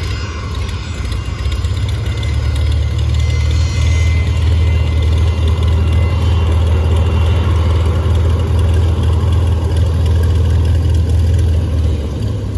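Fokker 100 airliner's Rolls-Royce Tay turbofan engines running at taxi power: a steady low rumble with a faint high turbine whine, growing louder about two seconds in.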